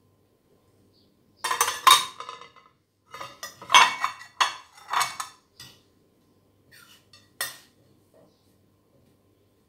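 A metal spoon clinking and scraping against a ceramic plate while mixing a crumbly filling of curd cheese and parsley. The clatter comes in irregular runs from about a second and a half in to nearly six seconds, with one sharp clink near the end.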